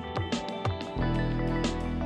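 Instrumental background music with sustained notes, growing fuller about a second in.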